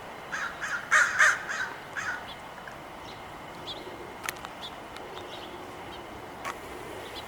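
Crow cawing, a quick run of about seven harsh caws in the first two seconds, the loudest around one second in. Faint bird chirps and a couple of sharp clicks follow.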